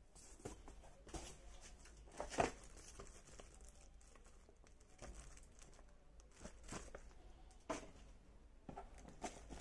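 Handling noise from unpacking a plastic tool case: plastic wrapping crinkling and tools and parts lightly knocking and clicking, with a sharper knock about two and a half seconds in.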